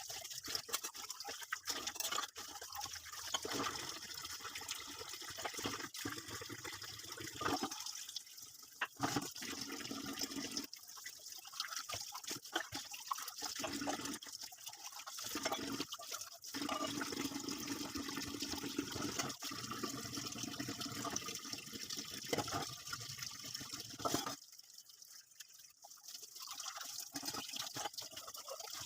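Water running from a kitchen tap, interrupted several times, with scattered small clicks and knocks.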